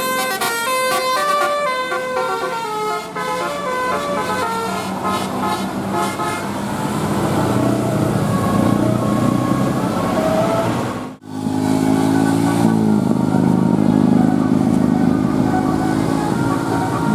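A bus's telolet horn playing a quick stepped melody for the first second or two, giving way to the running of road vehicles. About eleven seconds in the sound cuts out for an instant, and after it a low engine drone rises and falls in pitch.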